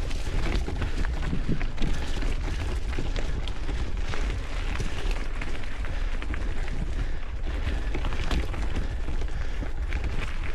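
Mountain bike ride heard from the rider's camera: wind buffeting the microphone as a steady low rumble, with tyres rolling over the dirt trail and the bike rattling over bumps in many short knocks.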